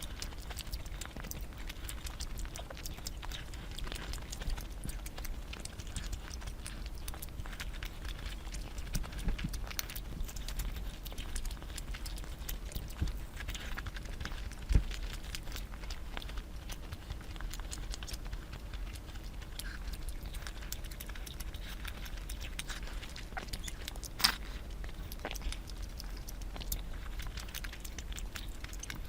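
A person eating close to the microphone: chewing with many small, wet mouth clicks, and two sharper clicks about halfway through and near the end. A faint steady low hum runs underneath.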